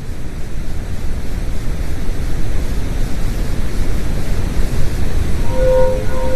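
Space sonification made from NASA electromagnetic-wave and image data: a dense, steady noise like wind or surf, heaviest in the low end, fading up at the start. A steady pitched hum with a few overtones comes in near the end.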